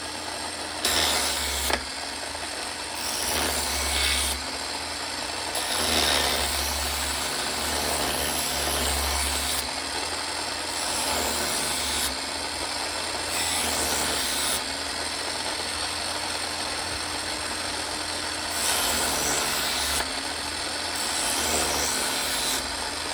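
Electric knife sharpener's motor running steadily while a knife blade is drawn through its grinding slots again and again, each pass a hissing grind lasting a second or two.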